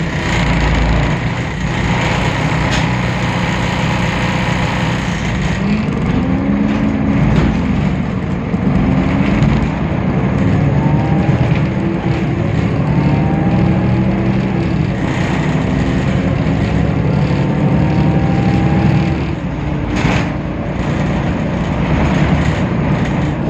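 Temsa Avenue LF city bus with a DAF PR 228 six-cylinder diesel and ZF 6AP 1400B automatic gearbox, running under way. The engine note and a whine climb in pitch several times as the bus accelerates through the gears, then drop back about twenty seconds in.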